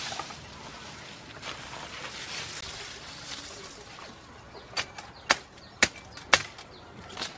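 Bamboo leaves rustling, then a knife chopping into a bamboo shoot at its base: four sharp strokes about half a second apart, with a lighter one near the end.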